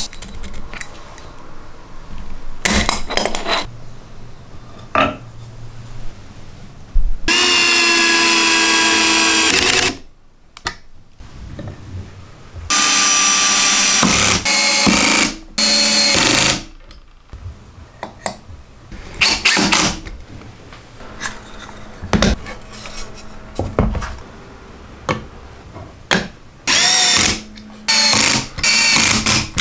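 Power drill driving screws through a steel hinge and caster mounting plates into wood, in five short whining runs. Clicks and knocks of handling the parts come between the runs.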